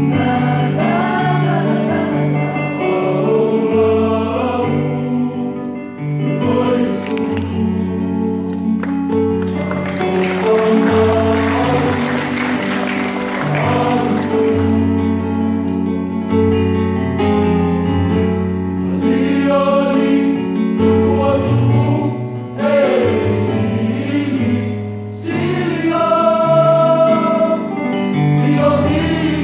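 Mixed youth choir singing a Christian song in harmony, with held notes and chords that move in steps.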